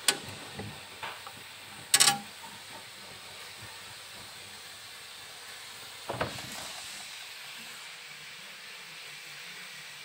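Sharp plastic clicks and knocks from a refrigerator's thermostat dial and inner compartment being handled: one click at the start, a quick cluster of clicks about two seconds in, and a duller knock about six seconds in. A steady hiss runs underneath.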